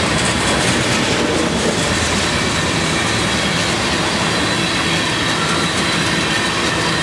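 Loaded tank cars of a crude oil train rolling past at speed: a loud, steady rolling noise of steel wheels on rail, with a few faint high steady tones over it.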